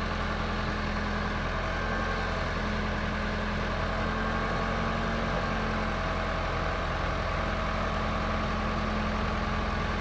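Backhoe loader's diesel engine idling steadily, a constant even hum with no knocks or clanks.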